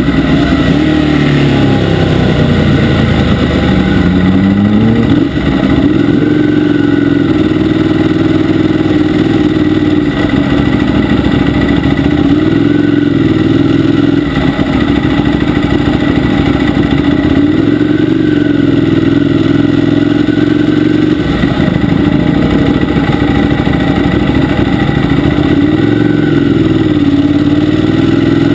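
Ducati 848's L-twin engine heard on board, winding down over the first few seconds, picking up briefly, then running steadily at low speed with small rises and falls in pitch.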